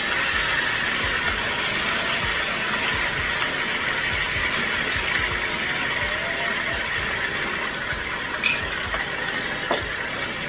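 Onions and tomato sauce sizzling steadily in a wide frying pan while a wooden spatula stirs them. Two short sharp taps come near the end.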